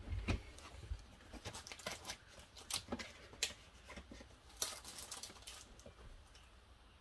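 Cardstock panel being trimmed down: a quiet run of short clicks and scraping cuts in small clusters, thinning out near the end.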